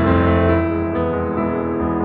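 Slow piano music: held chords that change a couple of times.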